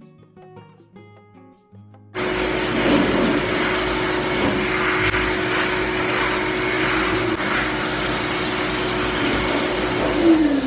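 Pet-wash blow dryer switching on about two seconds in and running as a loud, steady rush of air with a held whine, the whine falling in pitch as it winds down near the end.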